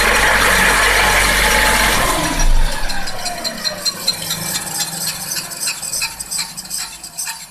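Front wheel and driveshaft of a Toyota Avensis spinning under engine power in drive, with the car on a lift: a steady hum for about two and a half seconds. Then the level drops and a falling whine with light rattling follows as it slows. The hum is the drone of a worn right front wheel bearing that needs replacing.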